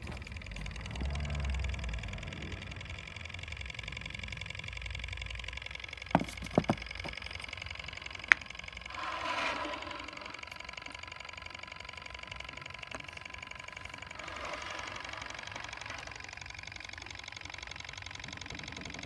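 Wiggers Stiwi 2 model Stirling engine running, its crank and linkage making a fast, even mechanical ticking. A few sharp clicks come a little past the quarter mark, and a short rushing swell of noise comes near the middle.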